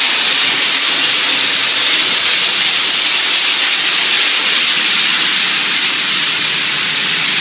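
Automatic spray painting line running with a steady, loud hiss of air and spray in the booth.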